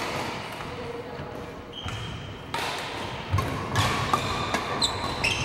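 Badminton play on a wooden gym floor: sharp racket-on-shuttlecock hits and footfalls, with short high shoe squeaks in the last second or so.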